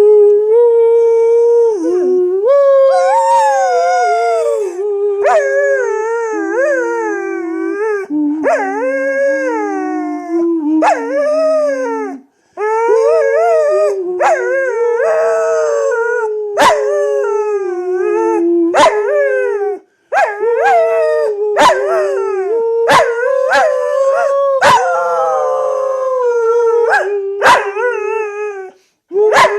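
Australian Shepherd dog howling a long, wavering 'song', its high notes sliding up and down and breaking off every second or so. Short sharp yips come in through the second half.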